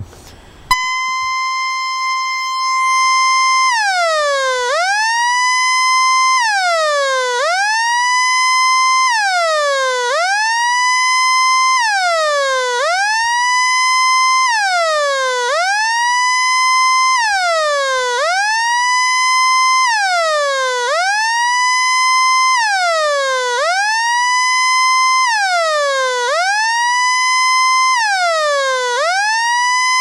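Conion TC-999 boombox's built-in sensor alarm sounding through its speakers: a click, then an electronic tone held steady for about three seconds, after which it wails down and back up in pitch about every two seconds.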